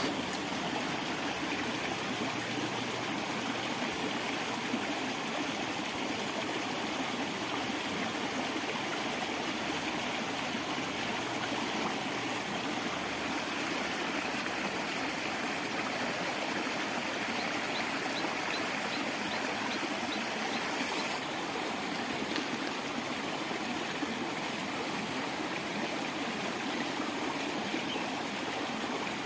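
Water running steadily in a small irrigation stream.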